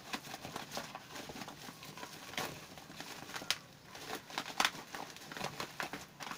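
Plastic wrapping and paper packaging of rice bags crinkling and rustling in a string of irregular small clicks and crackles as the bags are handled.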